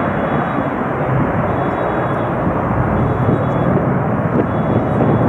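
A McDonnell Douglas MD-83's two rear-mounted Pratt & Whitney JT8D-219 turbofans at takeoff power as the jet climbs away, a loud, steady, deep rumble.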